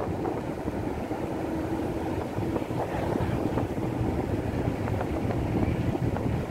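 Wind buffeting the microphone from a moving vehicle, over a low, steady engine hum.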